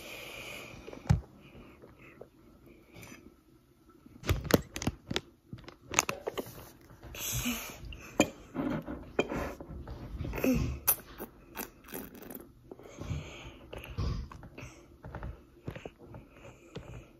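A child eating: chewing, with irregular clicks, knocks and scrapes of a utensil on a dish, busiest from about four seconds in.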